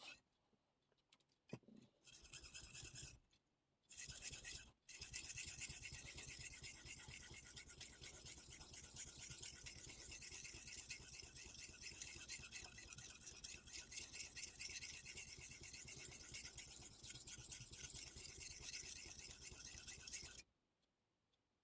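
Steel knife blade scrubbed rapidly back and forth on a whetstone. A short burst, a pause, then steady fast strokes that stop abruptly near the end.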